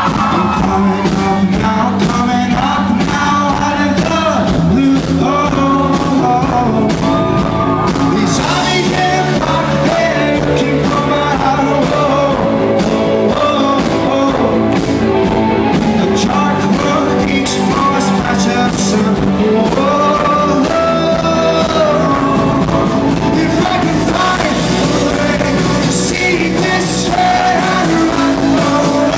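Live rock band in concert: a lead singer holding long sung lines over a full band playing steadily and loudly.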